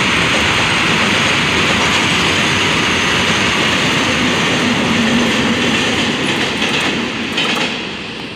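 Freight train of open hopper wagons rolling past close by: a steady, loud rumble and rattle of steel wheels on the rails. Near the end the noise drops away as the train moves off.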